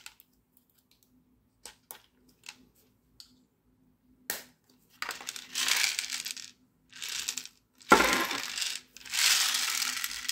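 Plastic airsoft Glock magazine and 3D-printed drum housing being handled: a few light clicks as a metal pin goes back into the magazine top, then several scraping bursts, the sharpest about eight seconds in, as the magazine is fitted to the drum.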